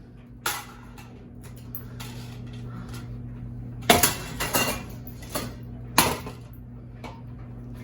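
Metal clanks and clatter of a ceiling fan being smashed: a sharp hit about half a second in, another around four seconds in followed by a few smaller rattling clanks, and a third near six seconds, over a low steady hum.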